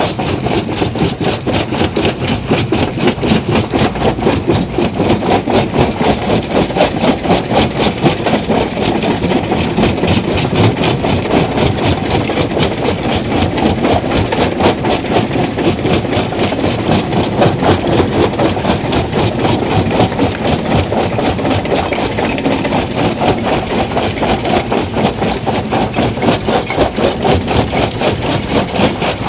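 Stone crusher machine running and crushing rock: a steady mechanical din with a rapid, even knocking rhythm throughout.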